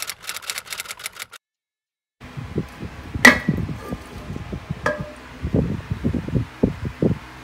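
Typewriter key clacks as the text types out, cut off suddenly. After a short silence, a metal spray can is handled on a hard floor: two sharp clinks with a brief ring, among soft handling thumps and scuffs.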